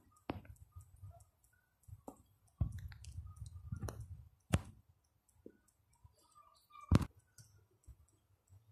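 Irregular clicks and light knocks from the phone being handled and the car's interior trim being touched, over a faint low rumble; the loudest knock comes about seven seconds in.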